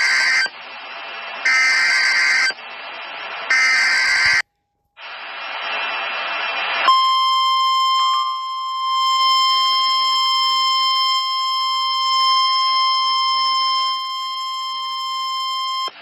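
Emergency Alert System warning heard through a phone: short screeching bursts of SAME digital header tones about every two seconds. After a short gap and a couple of seconds of hiss, a steady single-pitch warning alarm tone starts about seven seconds in and holds to the end.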